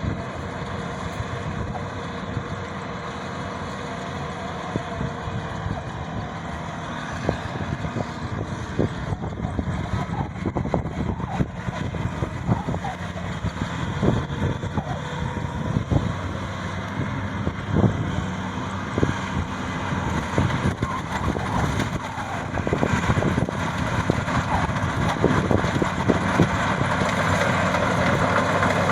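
Maxxi 85 combine harvester's engine running steadily, with scattered knocks and rattles, growing louder in the second half.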